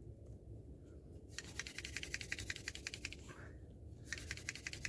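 A hand-drill fire-making set, with a plant-stalk spindle spun fast between the palms into a piece of chaga fungus to build heat toward a coal. It makes a rapid run of dry ticks in two spells of a second and a half or so each, with a short pause between.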